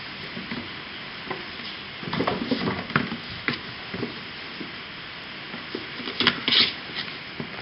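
Two kittens play-fighting, scuffling on a fabric blanket and crinkling shredded paper strips, in scratchy bursts of rustling about two seconds in and again near the end, over a steady background hiss.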